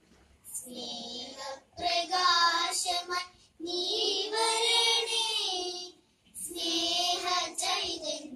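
A child singing a song in phrases of held notes, with brief pauses between the lines.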